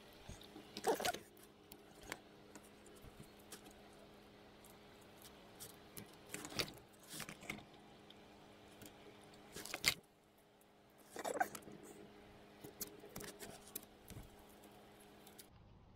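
Wires being handled and twisted together by gloved hands while splicing a car's wiring loom: scattered soft rustles and clicks in several short clusters. A faint steady hum runs underneath and stops shortly before the end.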